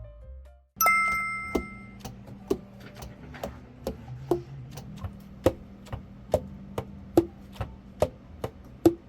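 Background music: a bright chime-like strike rings out and fades, then a steady ticking beat runs over a low sustained tone.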